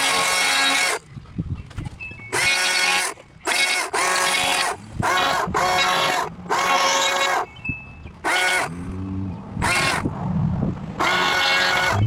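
Two-stroke chainsaw revved hard in about nine short bursts, each lasting half a second to a second, dropping back to a low idle between them.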